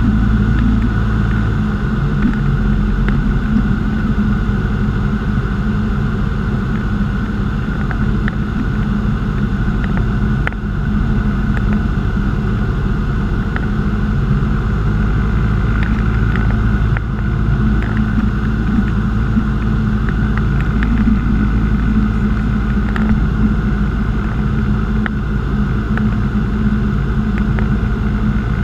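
Single piston engine and propeller of a light aircraft running steadily in cruise, a loud constant drone heard from inside the cockpit.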